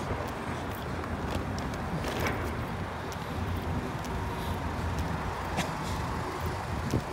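Steady low rumble of road traffic and vehicles, with a few faint clicks and taps from footsteps on asphalt.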